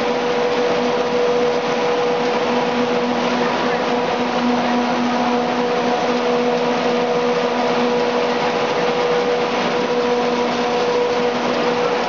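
Dog food extrusion line running: extruder and cutter motors give a loud, steady drone with a constant hum.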